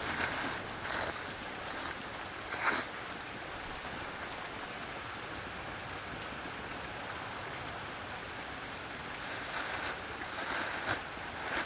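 Steady rushing of a flowing stream, broken by a few short rustles, about three near the start and two near the end.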